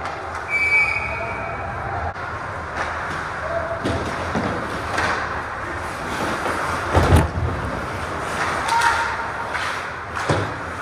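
Ice hockey play close to the net: skate blades scraping the ice, with sticks and the puck knocking several times, the loudest knock about seven seconds in, and brief shouts from players.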